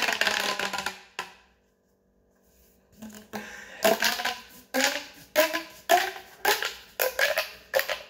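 Large corrugated plastic pop tube: a dense crackle of pops that stops about a second in as the tube is stretched out, then after a short pause a run of separate pops, about two a second, as it is pushed back together.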